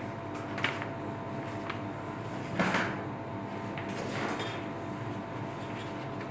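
Steady electrical hum of room tone with a few short rustles from a signer's hands and clothing as she signs, the loudest about two and a half seconds in.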